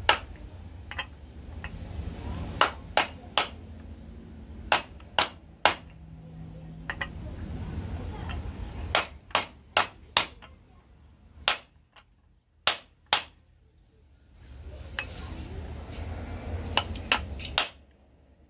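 A hammer tapping on a 20 mm socket to drive a new bearing into a Yamaha YZ85 water pump housing: sharp taps in short groups of two to four, with pauses between.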